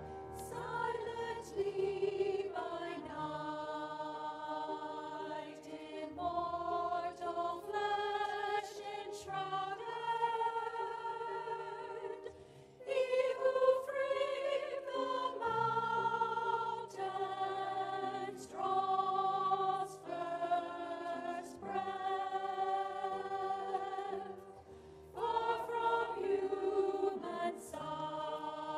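Church choir singing in harmony, in phrases of long held notes with brief breaks between them.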